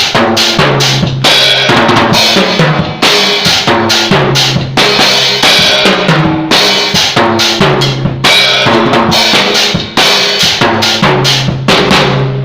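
Drum kit played in a busy, steady groove of kick, snare and cymbal hits, with low pitched notes moving underneath.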